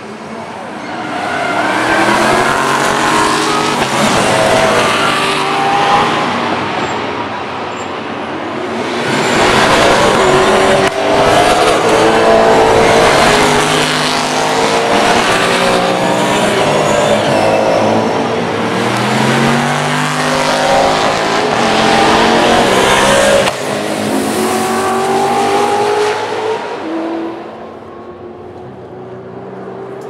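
A stream of racing saloon cars braking into a chicane and accelerating out of it, their engines falling and rising in pitch as they pass one after another. The loudest stretch is in the middle, and it dies down near the end.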